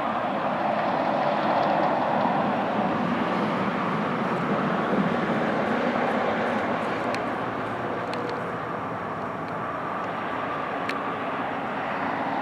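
Steady background engine noise, like distant motor traffic, swelling a little over the first couple of seconds and then easing, with a few faint ticks in the second half.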